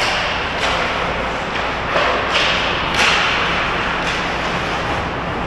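Ice hockey play on an indoor rink: skate blades scraping the ice under a steady noisy wash, with several sharp knocks of sticks and puck, the loudest about two and three seconds in, ringing in the hall.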